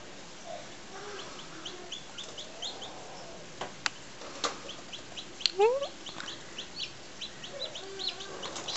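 Newly hatched bantam chicks peeping inside an incubator: short, high peeps that come sparsely at first and then faster and louder through the second half. A few sharp clicks sound a little past the middle.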